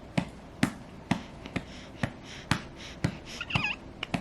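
Gentle rhythmic patting on a baby's back, about two pats a second, to bring up a burp that doesn't come.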